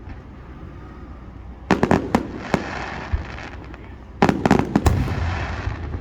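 Aerial fireworks shells bursting in two quick volleys, one about two seconds in and another about four seconds in, each a cluster of sharp bangs followed by a hissing tail that fades.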